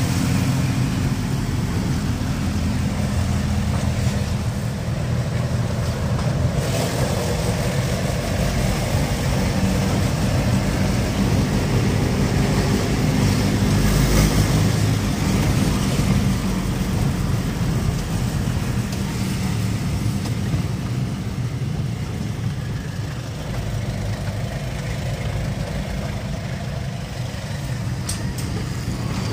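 Car engine and road noise heard from inside the cabin while driving: a steady low drone, with a brief thump about halfway through.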